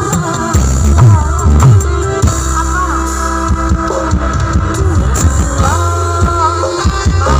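A campursari band playing live, loud over a PA system. Low drum strokes and bass notes go under a melodic line that slides up and down in pitch.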